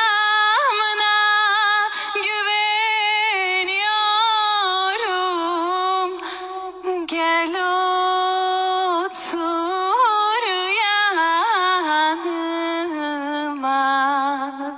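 A woman singing solo with no accompaniment, holding long notes decorated with wavering pitch turns, with brief pauses for breath between phrases.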